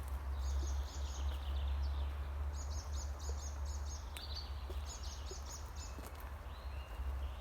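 A songbird singing three phrases of quick, repeated high notes, over a steady low rumble.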